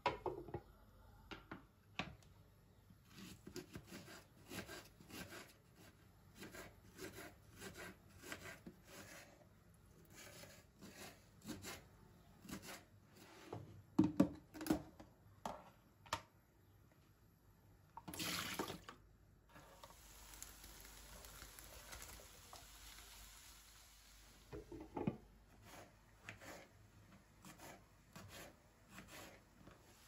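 A glass lid set down on a frying pan, then a knife chopping vegetables on a wooden cutting board, about two cuts a second. Later a few seconds of steady rushing noise, then more scattered knife taps on the board.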